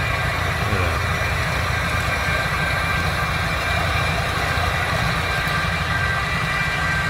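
Electric weed zapper working a field, its engine and generator running steadily: a low rumble with a high steady whine over it, while the bar runs about 25,000 volts through the weeds to kill them.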